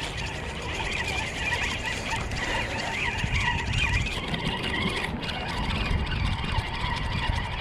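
Spinning reel being cranked steadily, its gears whirring as line is retrieved with a small fish on, over a low rumble.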